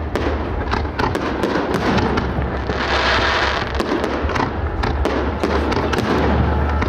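Fireworks display: aerial shells bursting in quick succession, many sharp bangs over a continuous rumble, with a thicker stretch of crackling about three seconds in.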